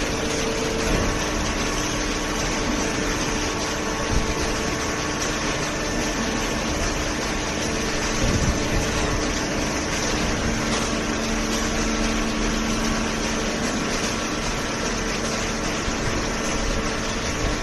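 A paper and cardboard baler's hydraulic power unit running: a steady machine hum with a few small knocks.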